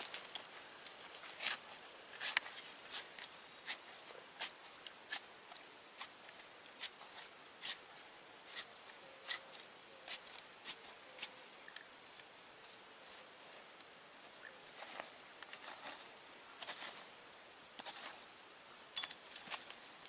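A small hand tool scraping and digging into dry, gritty soil in quick, irregular strokes, each a short crisp scratch, busiest in the first few seconds and again near the end.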